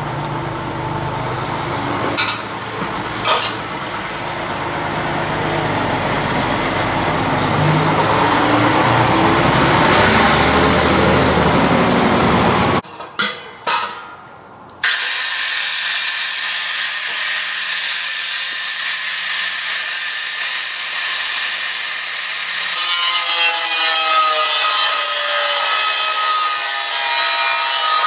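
Power tool cutting into a steel beer keg, running steadily with a high whine. It breaks off about halfway through with a few sharp clicks, then starts again abruptly.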